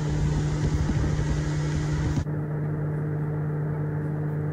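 Motorboat running at speed: a steady engine hum under a rush of wind and spray. The rushing cuts off suddenly about two seconds in, while the engine hum carries on.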